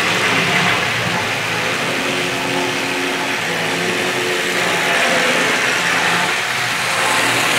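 Tri-ang Hornby OO-gauge model trains running together, among them a Hymek diesel hauling Freightliner wagons: a steady whirr of small electric motors and wheels over the track, with a faint hum about a third of the way in.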